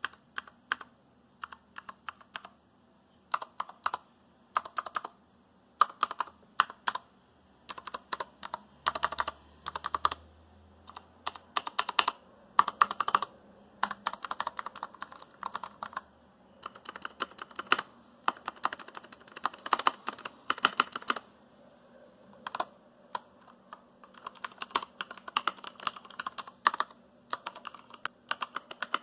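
Typing on a Durgod Taurus K320 mechanical keyboard with Cherry MX Brown switches and PBT keycaps: irregular runs of key clacks with short pauses between bursts.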